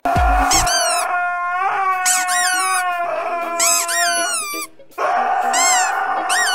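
Husky howling in long drawn-out notes whose pitch swoops up and down, with a brief break about three-quarters of the way through. A short low thump right at the start.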